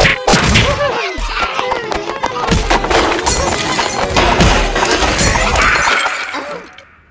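Cartoon soundtrack of busy music mixed with crashing and smashing sound effects, as in slapstick chaos. It fades out near the end.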